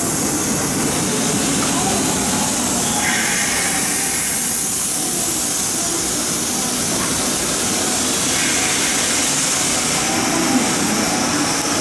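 JR West 201 series electric train running out along the platform: a steady rumble of wheels and running gear with no sharp knocks.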